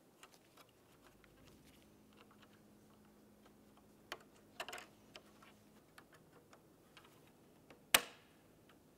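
Small plastic clicks and scrapes of a pocket screwdriver working plastic dash-trim parts, with a few louder clicks about four seconds in. Near the end a single sharp plastic snap, the loudest sound, as the switch housing is pressed into the bezel.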